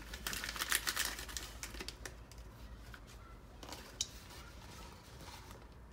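Small clicks and rustles of hands handling a cutting, a packet of rooting powder and a pot of soil. There is a quick cluster in the first second, then a few scattered clicks.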